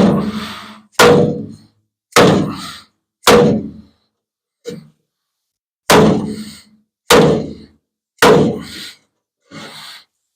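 Hammer blows on a wooden body block against the sheet-steel body of a 1950 Ford F1, knocking out a dent. There are about seven hard strikes and two lighter ones, roughly one a second, each leaving the panel briefly ringing.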